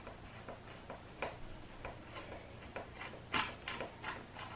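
Small screwdriver turning a stubborn screw in the plastic bottom cover of a Lenovo ThinkPad X250 laptop: a string of irregular small clicks, a few a second, with the loudest ones about three and a half seconds in.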